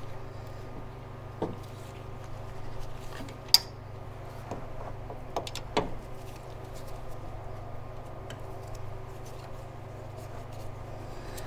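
A few sparse metallic clicks and knocks of a wrench working loose a bolt on a spark plug wire guide bracket, the sharpest about three and a half seconds in, over a steady low hum.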